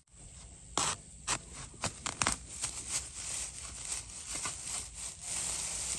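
Dry bamboo leaf litter and twigs rustling and crackling under hands. There are a few sharp snaps in the first two seconds or so, then a dense crackling rustle.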